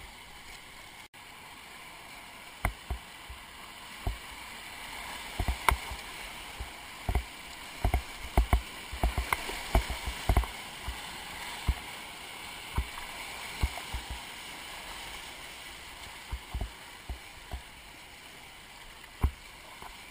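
Whitewater rushing around a kayak running a rapid, with many irregular sharp slaps and knocks against the boat. The rush swells in the middle as the bow punches through breaking waves, then eases toward the end.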